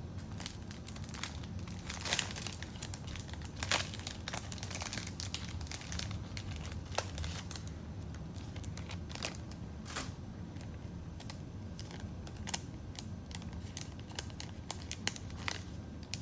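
Plastic bag crinkling and crackling as it is handled by hand, a Zippo lighter being bagged, with irregular sharp crackles throughout.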